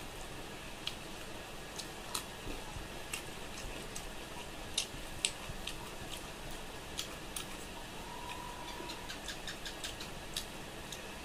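Eating rice and fish curry by hand from a steel plate: irregular small clicks and ticks as fingers mix and scoop the rice, over a steady background hiss.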